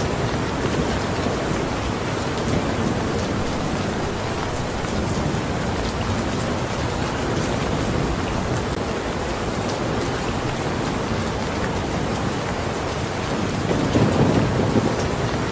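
Steady heavy rain falling on a surface, with a low rumble of thunder swelling briefly near the end.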